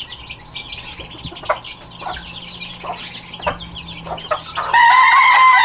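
Young chicks peeping faintly with a few soft clicks as they scratch and peck in dirt; near the end a rooster crows loudly in one long call.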